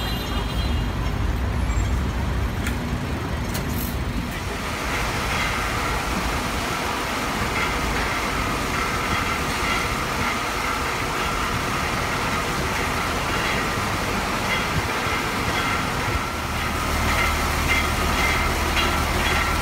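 Fire engine running steadily in the street, a continuous mechanical drone with traffic noise around it. A deeper steady hum comes in louder near the end.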